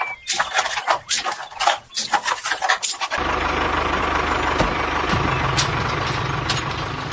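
A rapid clatter of sharp knocks, then from about three seconds in a small engine running steadily.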